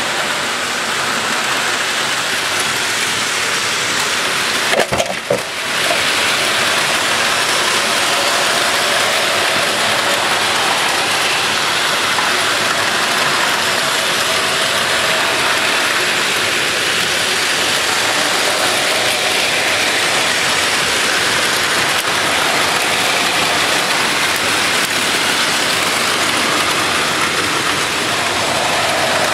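Many battery-powered Plarail toy trains running at once on plastic track: a steady, dense whirring of their small gear motors and clatter of wheels over the track joints, with a short break about five seconds in.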